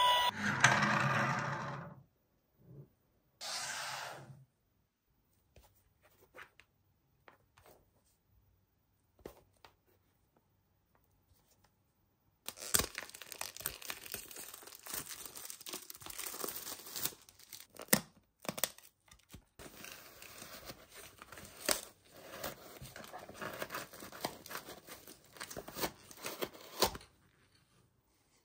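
Plastic shrink wrap being torn off a small cardboard toy box and the packaging opened: a long stretch of crinkling and tearing with many sharp rips, starting about twelve seconds in and stopping a little before the end. Before it come a short noise at the start and another around three to four seconds in, then several seconds of near silence.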